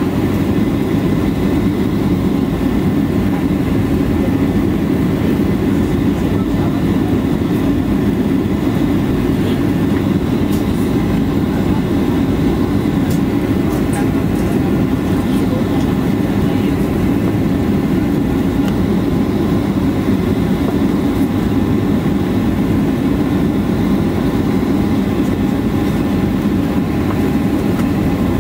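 Cabin noise inside a Boeing 737-800 rolling on the ground after landing: a steady, even rumble from the CFM56 engines and airframe, with faint steady whines above it.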